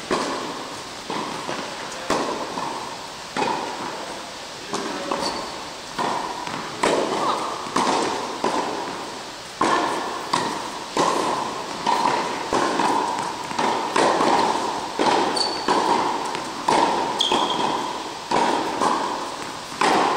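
Tennis ball being hit back and forth in an indoor tennis hall: sharp racket strikes and ball bounces follow one another about every second, each echoing briefly.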